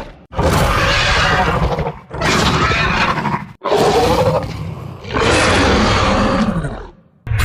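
Dinosaur roar sound effects for a spiky T-Rex: four roars one after another, each about a second and a half to two seconds long, with short breaks between them. Some fall in pitch as they end.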